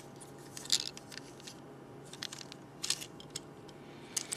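Scattered light plastic clicks and taps from a Transformers Deluxe Ratchet action figure being turned over in the hands and its jointed parts moved, over a faint steady hum.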